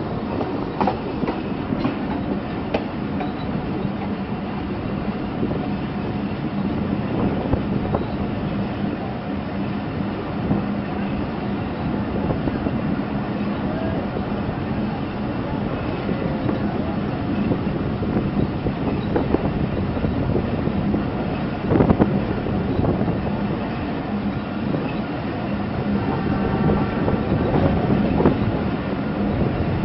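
Passenger train coach running along the track: a steady rumble of wheels on rails with scattered clacks over rail joints, and one sharp, louder knock about two-thirds of the way through.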